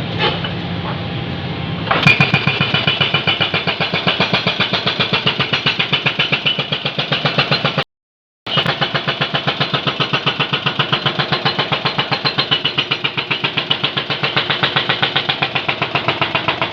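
Excavator engine running steadily, then from about two seconds in a hydraulic breaker hammering in a rapid, even stream of blows, several a second. The hammering stops for a moment near the middle.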